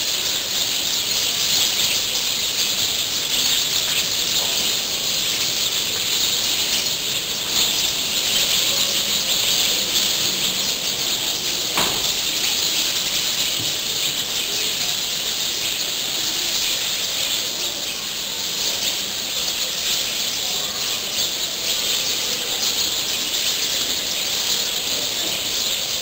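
Dense chorus of many small wild birds chirping and twittering together in a tree, a constant high-pitched chatter without pause.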